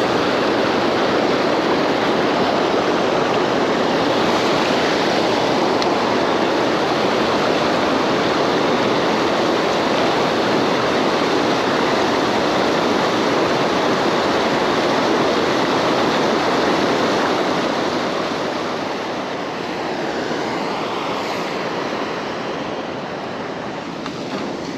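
Steady rush of flowing water, loud and even, easing slightly about three-quarters of the way through.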